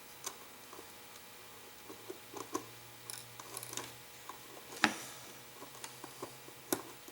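Faint, irregular small clicks and taps as a small nut is put onto the cuckoo clock's minute-hand shaft, with one sharper click about five seconds in.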